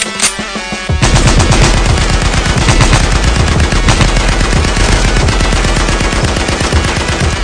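Rapid automatic gunfire, a fast continuous rattle of shots from about a second in, after a few single sharp hits.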